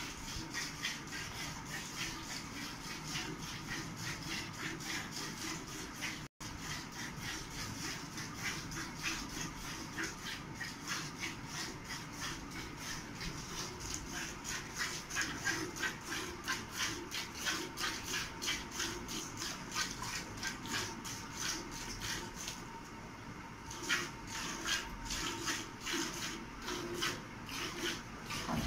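Cow being milked by hand: streams of milk squirt into a steel bucket in a steady rhythm of two to three squirts a second, with a short pause near the end.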